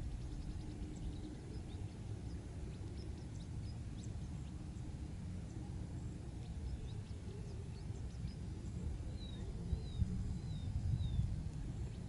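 Outdoor ambience of low wind rumble on the microphone, with faint scattered bird chirps and a run of four short whistled bird notes about nine to eleven seconds in.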